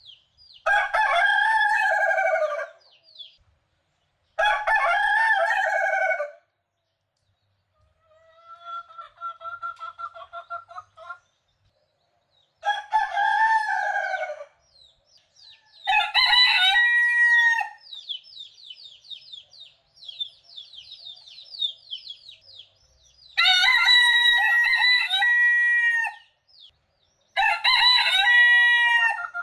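Roosters crowing one after another: six loud crows of about two seconds each, plus one fainter crow about eight seconds in. A fast run of high chirps fills the gap in the middle.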